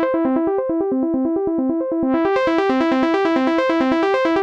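Arpeggiated synth in Sonic Academy's ANA 2 playing a fast repeating pattern of short notes from a C major chord. Its Moog-style low-pass filter is being swept: muffled at first, then opening up brighter about two seconds in, tuned toward a plucky sound.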